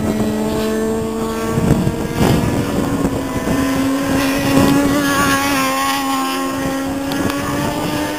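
Superbike racing motorcycle engine heard from trackside at high revs, one sustained engine note that climbs slightly and then holds as the bike goes through the corner. Wind buffets the microphone.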